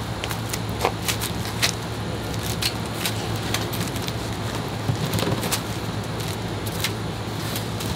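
Cardboard shipping box and its plastic and foam packing being handled and pulled at, giving scattered crackles and clicks over a steady low hum.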